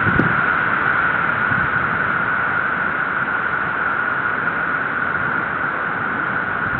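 Steady, loud static-like hiss from the nest camera's microphone, with a couple of low thumps right at the start.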